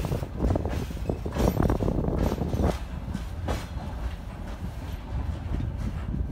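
Freight train of covered wagons rolling past, the wheels clattering and knocking on the rails over a steady low rumble. A denser, louder run of knocks comes between about one and a half and three seconds in.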